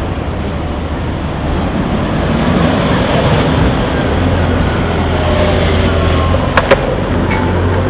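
Skateboard wheels rolling steadily over pavement, with two sharp clacks close together about six and a half seconds in.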